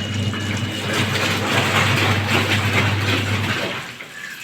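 LG washing machine taking in water: a steady low hum under a rush of water, easing off briefly near the end before picking up again.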